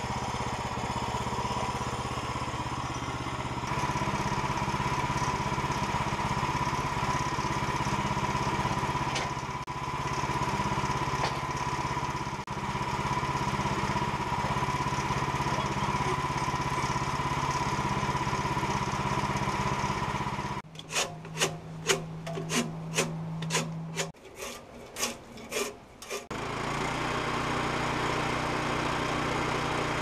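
Portable bandsaw sawmill's gas engine running steadily, with a steady whine over it. About two-thirds of the way in the engine sound gives way to a run of a dozen or so sharp knocks and clunks for several seconds, then the engine is heard again at a lower, steadier note like an idle.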